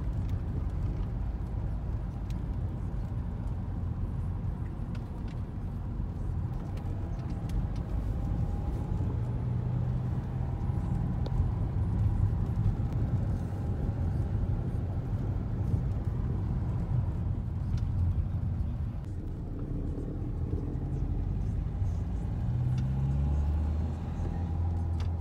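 Steady low road rumble of a car's engine and tyres, heard from inside the cabin while driving. Near the end the engine note climbs briefly, then holds steady.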